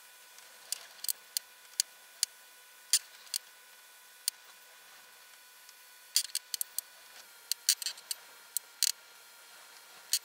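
Airbrush worked in quick taps over ink on paper: short, sharp clicks and puffs at irregular intervals, thickest from about six to nine seconds in, over a faint steady whine.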